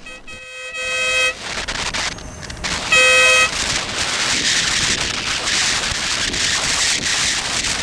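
Denali SoundBomb dual-tone electric air horn sounded twice: a blast of about a second, then a shorter, louder one. It is used to warn a driver in traffic. A steady rush of wind and road noise from the moving motorcycle follows.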